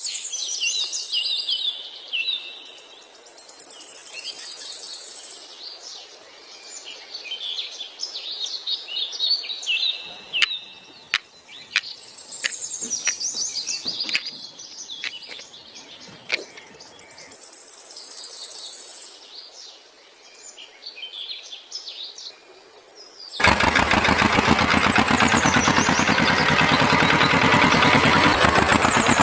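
Birds chirping in an outdoor ambience, with a series of sharp taps in the middle. About 23 seconds in, a loud, steady machine noise starts suddenly and keeps running, like an engine idling.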